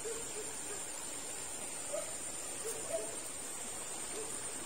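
Steady high trill of night insects, with a scatter of faint short, low animal calls.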